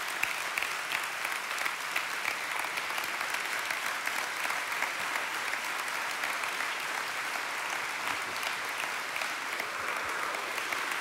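A large church congregation applauding steadily.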